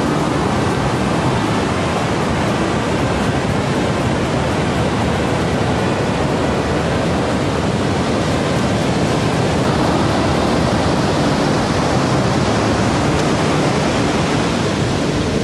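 Big waves breaking on a sandy beach: a steady, even rush of surf with no let-up, the heavy sea put down to a distant hurricane.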